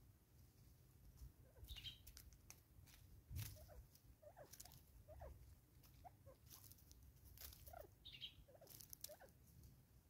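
Faint, quick pecking taps and clicks of a francolin feeding on chopped fruit on a wooden stump, with soft short calls scattered throughout and two higher squeaks, one about two seconds in and one near the end.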